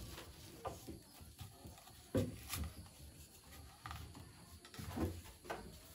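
Irregular soft knocks and thumps of a wooden pole lever and pipe being worked by hand, about five in all, the loudest about two seconds in.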